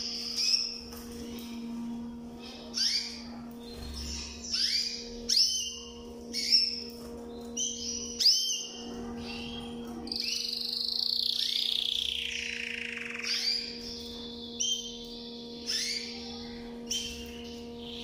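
Domestic canary singing: short bursts of chirps and trills broken by pauses, with one longer sweeping phrase from about ten to thirteen seconds in. A steady low hum runs underneath.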